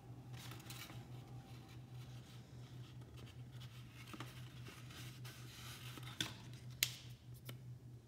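Sheets of paper rustling and sliding as they are handled, in soft spells, followed by a few sharp clicks near the end, the loudest a single snap.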